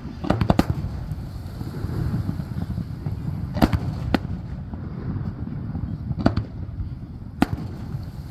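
Aerial fireworks shells bursting: a quick volley of several bangs about half a second in, then single sharp reports every second or two, over a steady low rumble.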